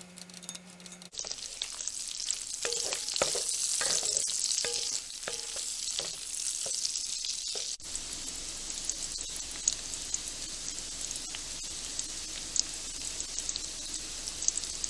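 Diced potatoes frying in oil in a skillet for home fries, sizzling steadily once it starts about a second in. Stirring and scraping in the pan sound through the first half, then the sizzle goes on with occasional small pops; the potatoes are crisped and nearly done.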